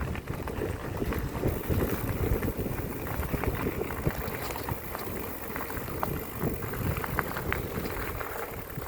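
Wind rumbling on the microphone of a bicycle being ridden along, with tyre noise and scattered small clicks and rattles from the bike.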